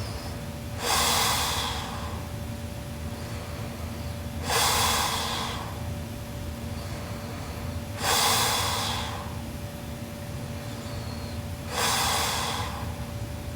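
A sleeping woman snoring loudly: four noisy breaths, each about a second long, coming about every three and a half seconds.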